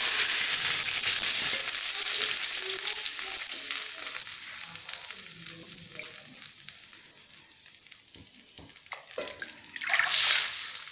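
Water poured into hot ghee and cumin seeds in an aluminium kadai, sizzling loudly as it hits the fat, the hiss dying away over several seconds as the water takes up the heat. About ten seconds in, a second pour of water sets off another short burst of sizzling.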